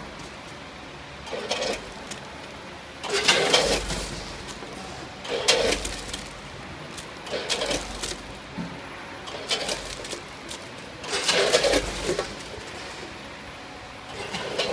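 Multihead weigher running, discharging batches of foil-wrapped chocolate pralines: a clattering rattle of candies and hopper gates about every two seconds over a steady machine hum.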